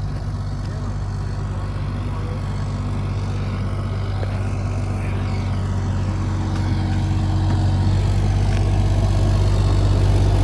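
An engine running steadily at low revs, growing slowly louder, with a deeper low hum coming in about eight seconds in.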